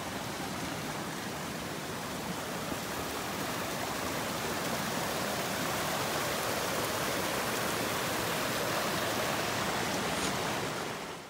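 Steady rush of a flowing creek, fading out near the end.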